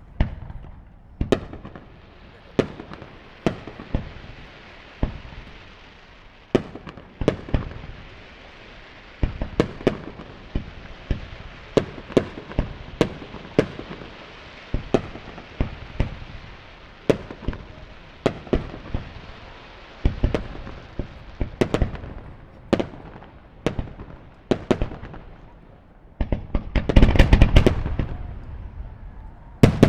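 Aerial fireworks shells bursting one after another, about one or two sharp bangs a second over a steady crackling hiss. About 26 seconds in, a dense, louder barrage of rapid bursts takes over.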